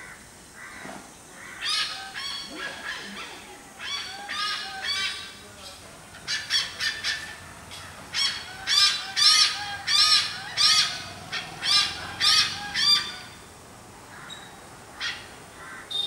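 Hornbill calling: a run of short, harsh, loud calls, coming quicker and louder in the second half, then breaking off with a last faint note or two.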